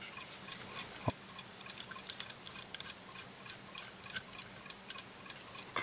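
Faint small clicks and ticks of a screwdriver turning a small self-tapping screw out of the plastic body of a FNIRSI TP10 non-contact voltage tester, with one sharper click about a second in.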